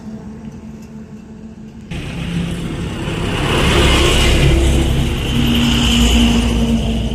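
Heavy diesel trucks on the road: a truck's engine fading as it moves away, then about two seconds in a sudden jump to a container truck passing close, its engine running with loud tyre noise on the asphalt.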